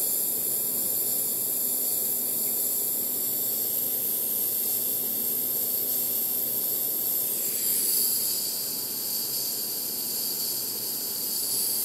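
Steady hiss of a small butane torch flame heating the thermoelectric generator's hot plate, with a slight shift in tone about eight seconds in.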